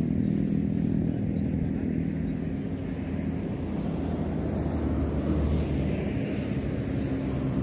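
A steady, low motor drone, like an engine running, with a light haze of noise around it and no sharp events.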